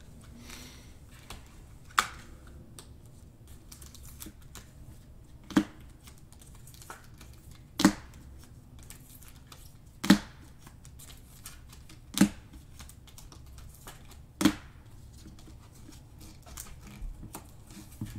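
Trading cards and their clear plastic packaging being handled while a pack is opened: six sharp clicks about two seconds apart over faint rustling.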